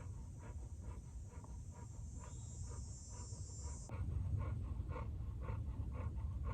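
Dog panting steadily, about two to three quick breaths a second. It is panting from eagerness to get at the owner's food, not from heat or thirst.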